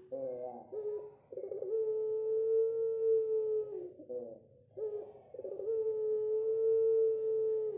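Kelantan derkuku (spotted dove) cooing: a young bird practising its long-type call. Each coo opens with a quick burble, then holds one steady note for about two seconds before dropping off; this happens twice, with a short falling note between them about four seconds in.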